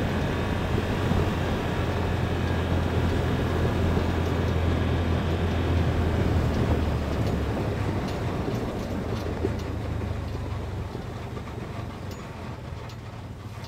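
A motor vehicle running, a steady low drone with rumbling noise over it that fades over the second half.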